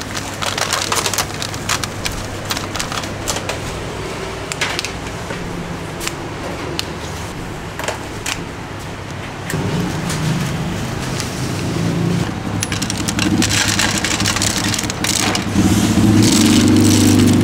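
Plastic clamshell food containers and plastic-gloved hands rustling and clicking as durian portions are boxed and topped, over a steady low hum of road traffic that grows louder near the end.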